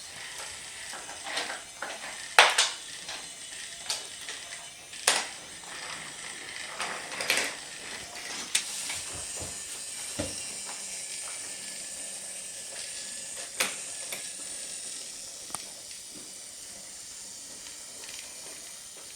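Scattered sharp clicks and knocks, a dozen or so spread irregularly, from wooden and plastic BRIO toy train pieces and their packaging being handled, over a steady faint hiss.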